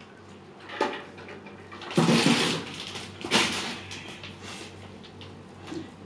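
Mother husky licking her newborn puppy clean: wet licking in a few short bursts, the longest and loudest about two seconds in.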